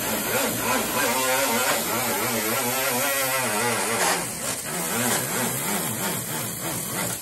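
A small handheld air-powered sanding tool running against the bare steel underside of a 1964 Ford Falcon trunk lid, stripping old paint and primer. It gives a whine that wavers up and down in pitch over a constant hiss, and the sound cuts off abruptly at the end.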